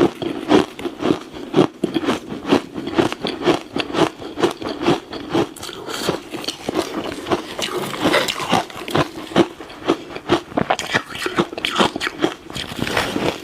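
Ice being bitten and crunched between the teeth close to the microphone: a fast, irregular series of cracks and crunches.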